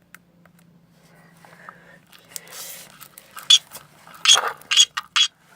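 Homemade slime being stirred and worked in a bowl, with a few short, sharp sticky sounds in the last two seconds as it thickens.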